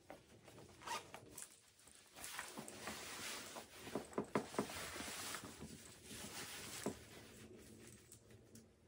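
Clothing zipper being worked and fabric handled, a rasping noise in bursts over several seconds with a few sharp clicks in the middle.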